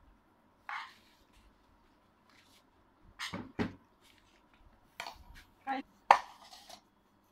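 A spoon scraping and knocking against a small saucepan and a plate as cooked rice is scooped out: a handful of short, sharp knocks and scrapes, the loudest about six seconds in.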